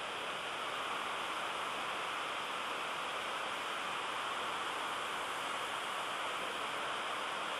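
Water pouring down the stone walls of the National September 11 Memorial's reflecting-pool waterfall into the pool, making a steady, even rushing hiss.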